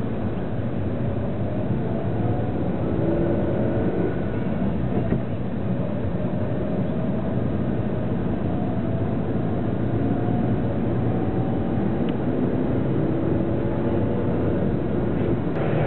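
Steady engine and road noise heard inside a moving car, a low drone with faint engine tones slowly shifting in pitch.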